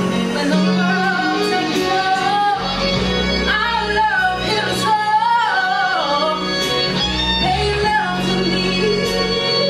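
A woman singing a slow, drawn-out melody solo, her voice sliding and wavering through held notes and runs, over a steady instrumental accompaniment.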